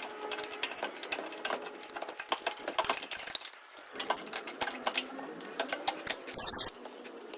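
Rapid, irregular clicking, several clicks a second, growing sparser and quieter after about three and a half seconds.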